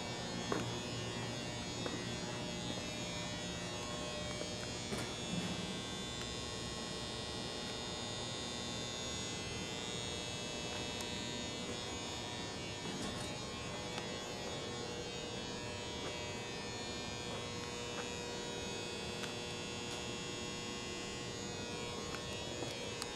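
A steady hum and buzz, with a few faint knocks.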